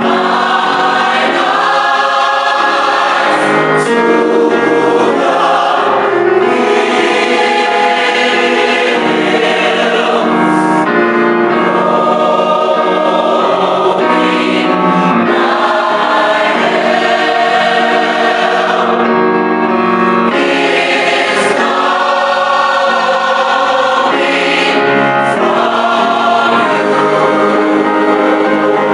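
Choir singing gospel music, many voices in sustained chords.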